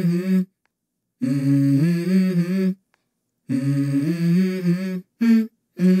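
A man's voice humming a slow melody in phrases about a second and a half long, held notes stepping up and down, with clean silent gaps between the phrases: the hummed opening of a background song.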